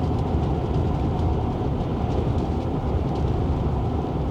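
Strong gusting wind, around 40 mph, buffeting the microphone: a loud, steady low rumble that starts abruptly.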